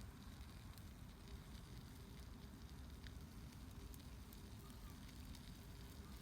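Faint crackling of a wood campfire: scattered small ticks and pops over a low background rumble.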